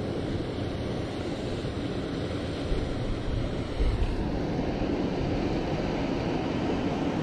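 Steady rush of flowing river water, with wind buffeting the microphone in a few low thumps in the middle.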